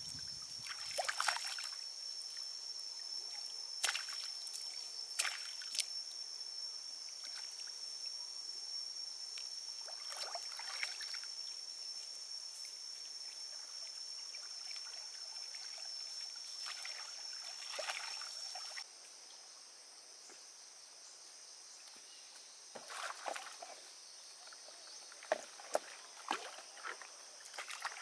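Water splashing and sloshing in short bursts as a cast net lands in a shallow muddy lake and a person wades through it, over a steady high-pitched whine that stops abruptly about two-thirds of the way through. Near the end, quieter splashes and drips of a bamboo pole pushing a raft.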